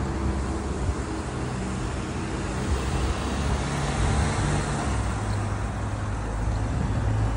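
Road traffic noise, with the steady low hum of a vehicle engine close by under the rushing of tyres on the road.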